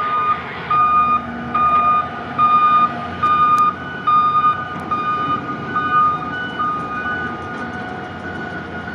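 Straddle carrier's warning beeper sounding a regular pitched beep about every 0.8 seconds, fading out after about six seconds, over the machine's steady running noise.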